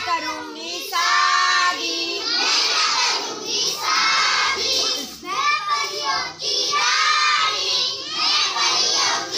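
A group of children shouting and chanting together in short repeated phrases, many voices at once.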